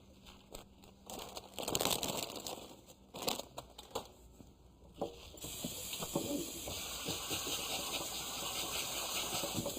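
Kitchen work sounds: scattered clicks and knocks, then from about five seconds in a steady hiss.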